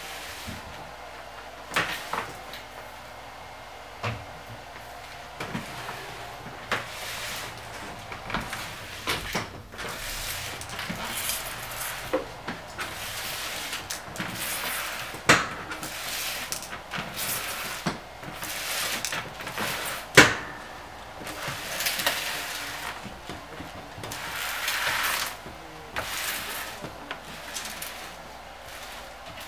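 Irregular knocks, clicks and scraping of hands and tools working in a kitchen sink cabinet, with the loudest knocks about 15 and 20 seconds in.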